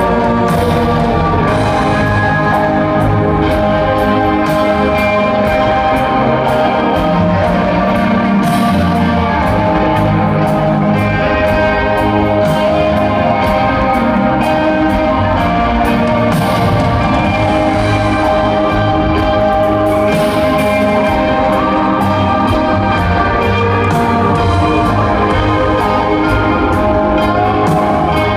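Rock band playing live over an arena PA, heard from the crowd: sustained guitar and keyboard chords over a slow, steady drum beat with regular cymbal hits.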